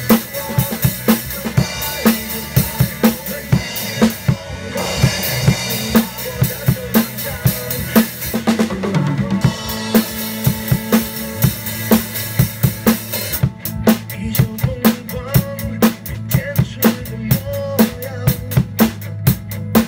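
Acoustic drum kit played with sticks: kick drum, snare and Zildjian cymbals in a continuous groove, with a cymbal wash about four seconds in and a tight, even beat over the last several seconds.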